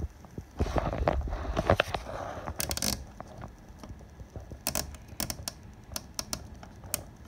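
Handling of the front-panel knobs on a Uniden PRO520XL CB radio: rustling, then a quick run of small sharp clicks about two and a half seconds in, and scattered single clicks over the next few seconds.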